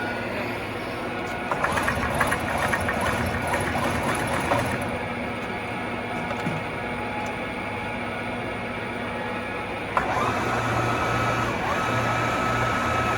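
TOS SUI 63 engine lathe running, its spindle gearing whirring steadily with a rattle for a few seconds near the start. About ten seconds in there is a sharp click, then a steady high whine joins the running sound.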